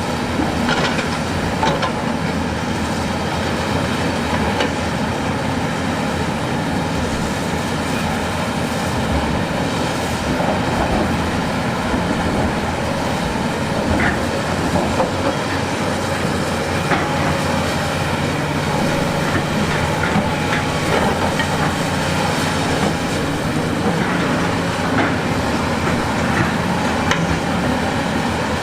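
Tracked earthmoving machine working: a diesel engine runs steadily under a continuous clatter of metal clanks and rattles.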